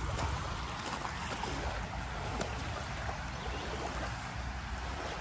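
Steady wash of water lapping on a stony shore, an even hiss with a constant low rumble beneath it.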